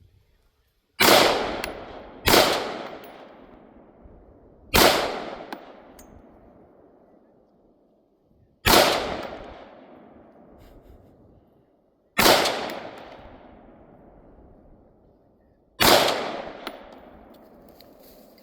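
Six single gunshots fired at a target, spaced unevenly a second to four seconds apart, each followed by a long echo dying away.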